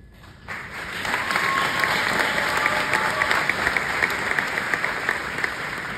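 Audience applauding: the clapping starts about half a second in, swells quickly and holds, then begins to taper off near the end.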